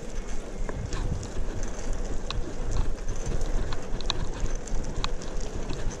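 Bicycle rolling over a concrete lane: a steady low rumble from the tyres and wind on the microphone, with scattered small clicks and rattles.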